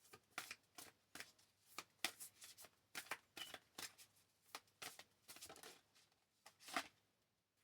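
Tarot cards being handled: a quiet, irregular series of soft card flicks and taps, about two a second, with a louder snap near the end.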